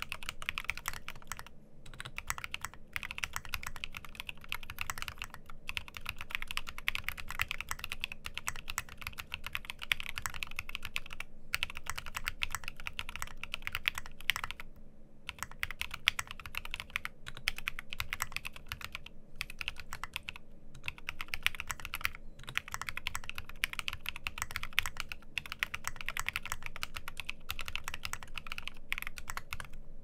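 Fast, steady typing on an LZ Phase custom mechanical keyboard. It has a polycarbonate bottom housing and plate, lubed and filmed Cherry-top SP-Star Sacramento switches, and tall SA-profile keycaps. Keystrokes come in quick runs, with a brief pause about halfway through.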